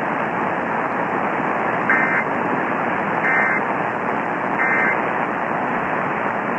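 Weather radio receiver hissing with static, broken by three short warbling data bursts about a second apart: the SAME end-of-message code (NNNN) that closes a NOAA Weather Radio broadcast.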